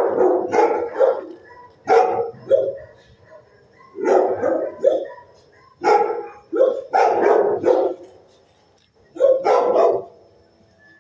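Dogs in a shelter kennel barking in bouts of a few barks at a time, every second or two, with a gap of a second or so near the end.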